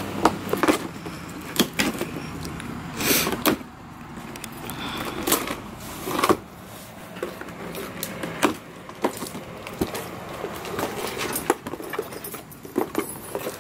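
Cardboard shipping box being opened by hand: packing tape pulled off and the flaps handled, in a run of short scrapes, rustles and knocks.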